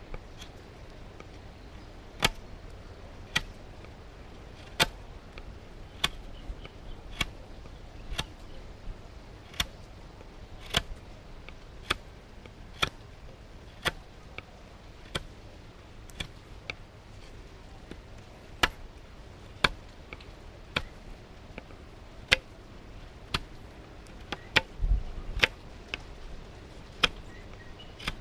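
LT Wright GNS knife cutting short shavings off the square edge of a sawn strawberry guava stick end to round it, a sharp crisp snick with each stroke at about one a second. A low thump is heard near the end.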